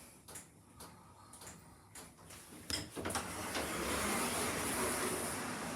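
Passenger lift machinery: a click about two and a half seconds in, then a steady whirring hiss as the lift's doors or car begin to move.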